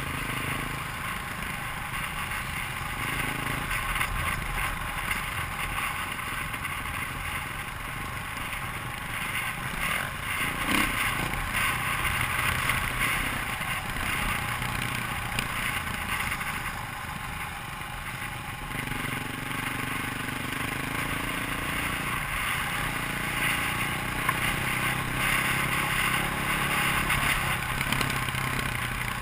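KTM dirt bike engine running under way on a trail, its pitch rising and falling with the throttle, over heavy wind noise and rattling.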